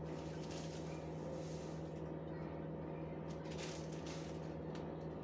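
Steady low electrical hum from a kitchen appliance, with a couple of faint soft rustles about three to four seconds in as a teaspoon of garlic powder goes into a bowl of marinade.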